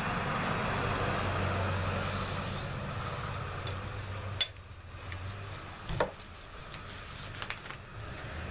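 Plastic cling wrap over a plate crinkling and crackling as a hand pulls it back, with two sharp clicks around the middle. A steady low hum sits underneath and drops away about halfway through.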